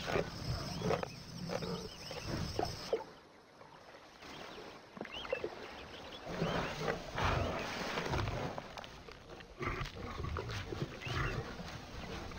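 Lions growling in uneven bouts while feeding on a hippo calf's carcass, with a quieter lull a few seconds in.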